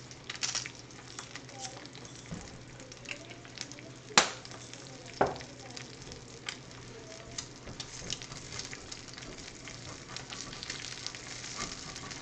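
Eggs frying in a small cast iron skillet: a steady sizzle with frequent small crackling pops. Two sharp knocks stand out about four and five seconds in.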